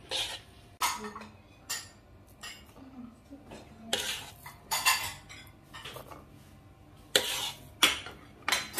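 Steel spoon scraping and stirring thick semolina kesari around a metal kadai, in irregular strokes about a second apart, the loudest near the end.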